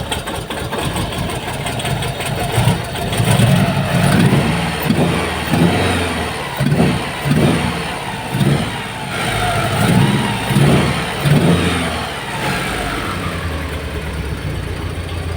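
Mitsubishi 4G63 inline-four engine running and being revved in about ten quick blips, then settling back to a steady idle. The engine is still cold and not yet running smoothly after misfiring.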